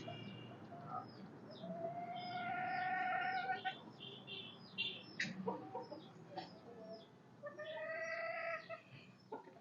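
Birds calling: two long, level calls a few seconds apart, among many short high chirps.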